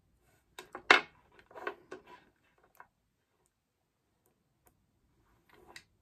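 Multimeter test probes and a 1.5 V battery handled on a wooden tabletop: a quick run of clicks and light knocks, the loudest about a second in, then a few more clicks near the end.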